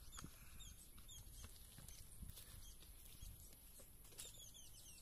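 Near silence, with a few faint, short, high chirps from birds and a quick run of them near the end.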